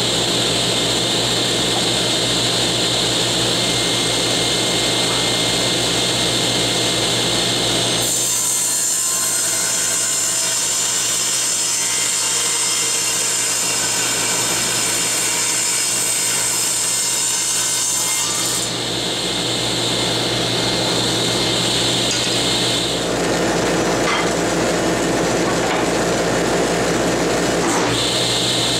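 Table saw running continuously while ripping strips of hard Lyptus wood fed along the fence with a push stick. About eight seconds in the sound of the cut shifts higher in pitch for roughly ten seconds, then settles back.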